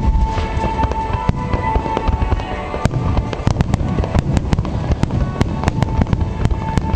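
Aerial fireworks bursting with deep continuous booms, turning from about three seconds in into a dense crackle of many sharp pops. Music with sustained notes plays underneath.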